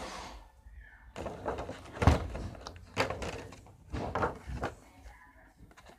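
A few knocks and thumps with rustling from hands handling things close to the microphone; the loudest thump comes about two seconds in.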